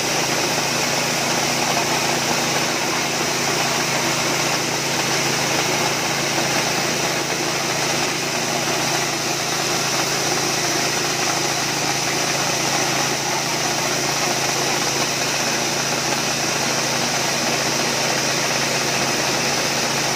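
Small single-cylinder petrol engine running at a steady speed, driving a portable huller that is stripping the husks from dry coffee cherries.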